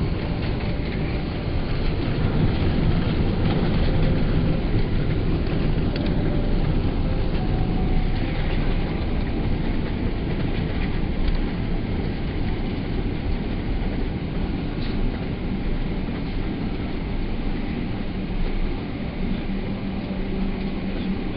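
Cabin noise of a Boeing 777 rolling on the ground after landing: a steady rumble and rattle from the wheels on the pavement, with the jet engines running underneath.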